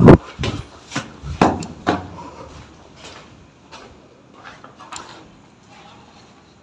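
A run of heavy thuds and knocks, about two a second, the loudest right at the start, then fading into fainter, more widely spaced knocks.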